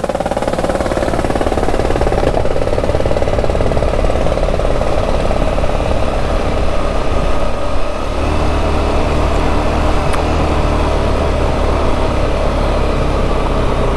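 Motorcycle engine running as the bike rides a rough, dusty road, with a steady noise over it. About eight seconds in, the engine note shifts, as at a gear change.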